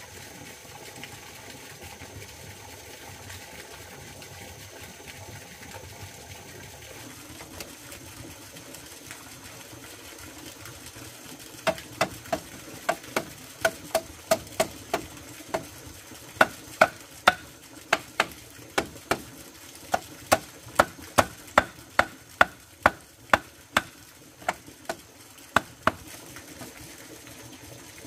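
A run of sharp, ringing strikes, about two a second, beginning about twelve seconds in and stopping shortly before the end, over a steady low background hiss.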